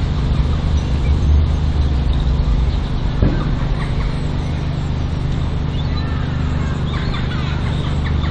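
A small engine running steadily at a constant pitch, with a single knock about three seconds in.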